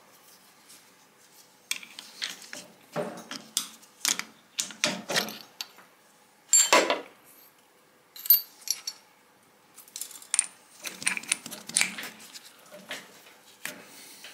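Steel drill bits and tooling being handled during a tool change on a milling machine: irregular metallic clinks and clatters as bits are picked up and set down on the steel vise. The loudest knocks come a little before and just after the middle.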